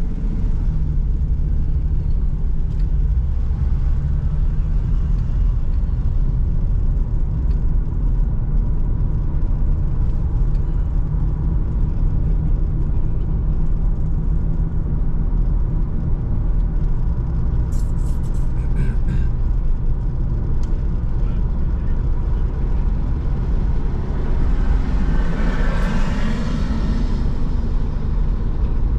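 Car driving at road speed: a steady low rumble of engine and tyres on the road. Near the end another vehicle passes, its noise swelling and fading.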